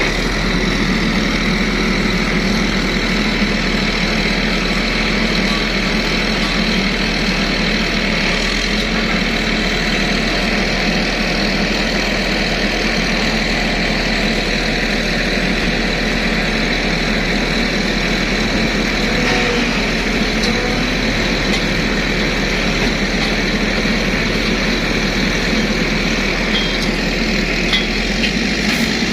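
Heavy vehicle engine running steadily without a break.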